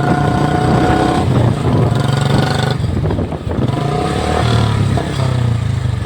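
Royal Enfield Bullet's single-cylinder engine running steadily while the bike is ridden along.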